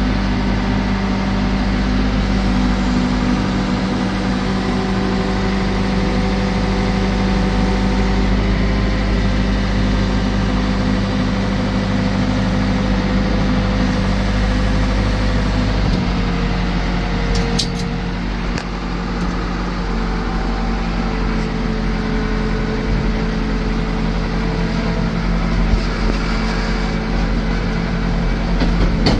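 Case 580 Super L backhoe's four-cylinder diesel engine running steadily. About halfway through, the engine note shifts slightly lower, with a few brief clicks just after.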